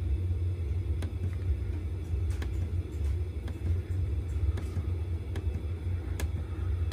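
Ideal Logic combi boiler running while firing for central heating, a steady low rumble of its burner and fan, with several faint clicks as its menu 'Next' button is pressed.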